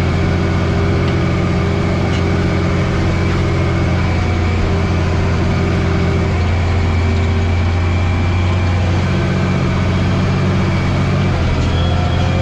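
Farm tractor's diesel engine running steadily under load while pulling a harrow, heard from inside the cab.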